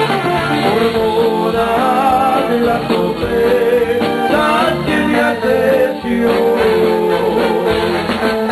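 A Tejano band playing live, an instrumental passage with a wavering melody line carried over the bass and drums, the accordion heard in the band.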